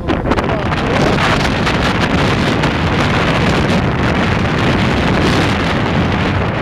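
Strong wind buffeting the microphone on an open barge at sea, a dense steady rush that gets louder at the start, over the sea rushing white along the hull.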